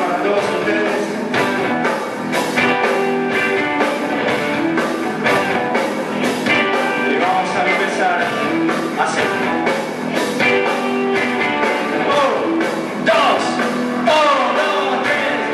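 Live rock band playing: electric guitars over a steady drumbeat, with a singer's voice.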